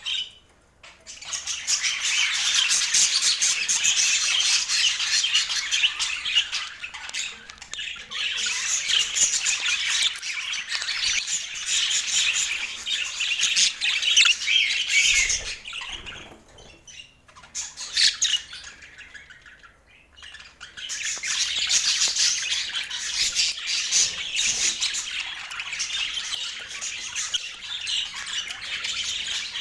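Budgerigars chattering: a dense, fast run of chirps and squawks, with short breaks just after the start, around the middle and about two-thirds of the way through.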